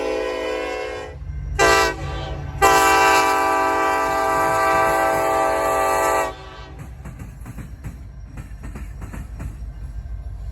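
Mini K5LLA five-chime locomotive air horn sounding: a long blast ending about a second in, a short blast, then a final long blast of about four seconds, the close of the long-long-short-long grade-crossing warning. After the horn stops, the train's wheels rumble and click steadily over the rail joints.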